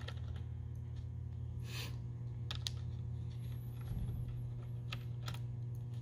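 Small screwdriver turning out the tiny screws that hold a laptop touchpad, giving a scattering of light clicks and scrapes over a steady low hum.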